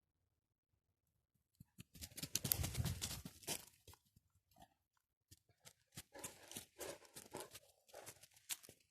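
An animal digging and scratching in forest litter, with crunching and rustling in two spells: one starting about two seconds in and lasting a second and a half, and a longer one from about five and a half seconds on.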